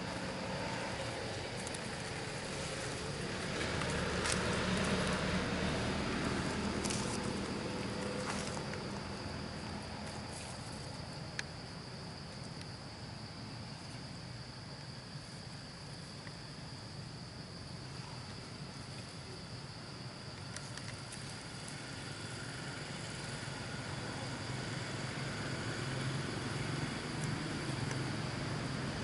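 Outdoor ambience: a steady high insect drone, with the low rumble of passing traffic that swells around five seconds in and again near the end. There are a few faint clicks.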